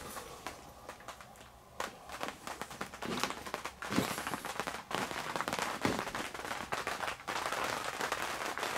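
Crinkling and crackling of a plastic tent floor sheet as someone moves across it: scattered clicks at first, then a dense, continuous crackle from about four seconds in.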